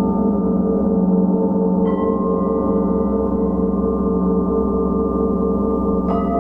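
Large Paiste planetary gong ringing under a mallet: a dense, sustained layer of tones with a slow pulsing beat, freshly struck about two seconds in and again near the end, each stroke adding new clear, higher tones.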